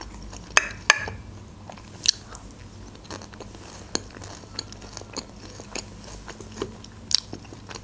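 Close-miked chewing of a mouthful of Caesar salad: wet crunching and mouth clicks, with a few sharper crunches about half a second in, at about one second, at about two seconds and near the end.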